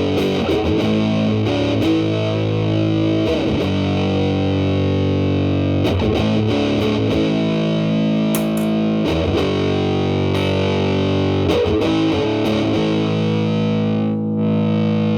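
Telecaster played through a Big Muff Pi fuzz pedal with its sustain knob at 1–2, into a Marshall Valvestate amp's clean channel: chords struck and left to ring, a new one every few seconds.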